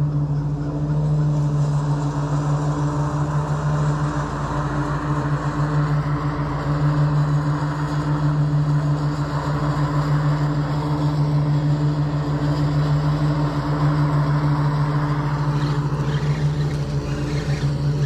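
A steady low motor hum, holding one even pitch, over a light hiss.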